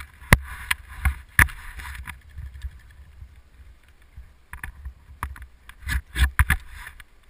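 Wind buffeting the camera microphone with a low rumble, broken by sharp knocks and rattles as the camera jolts on an ATV bouncing over rough grass. The loudest knocks come in clusters about a third of a second in, around a second and a half in, and again about six seconds in.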